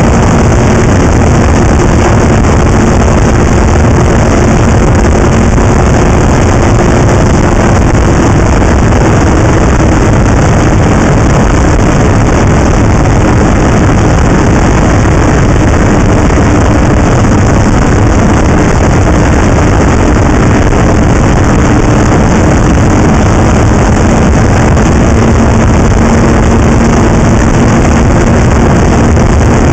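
Snowmobile underway at a steady speed: the engine runs under a loud, even rushing noise, its pitch shifting slightly up and down a few times.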